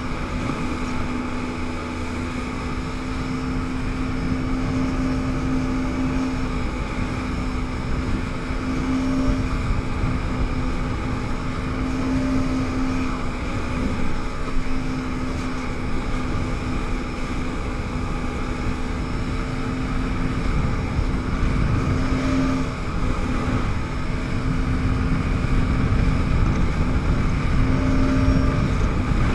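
Yamaha WaveRunner jet ski's engine running at speed with a steady pitch, over the rush of wind and water spray against the hull.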